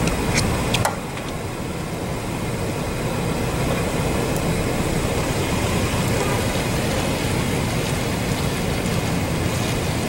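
Steady outdoor background rumble with no siren tone, the siren already silent, with a few sharp clicks in the first second.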